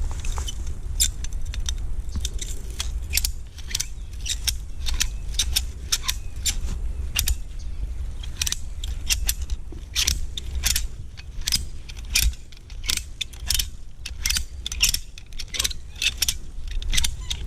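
Ratchet strap being cranked tight: a string of sharp metallic clicks, irregular, two or three a second, over a steady low rumble of wind on the microphone.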